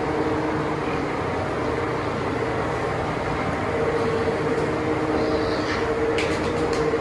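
Steady mechanical drone with a constant low hum, with a few faint clicks about six seconds in.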